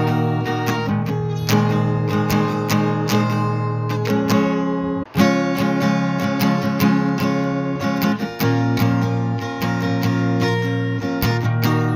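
Background music of strummed acoustic guitar, with a brief break about five seconds in.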